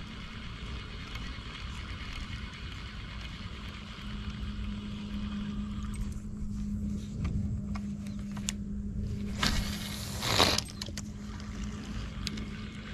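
A steady low motor hum runs throughout, with faint clicks as a spinning rod and reel are worked to retrieve a lure. About nine and a half seconds in comes a brief hissing rush that peaks sharply near its end.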